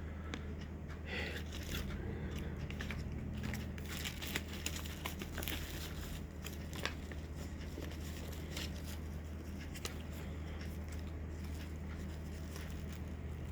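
Plastic packaging crinkling and tearing in irregular handling rustles and clicks, over a steady low hum.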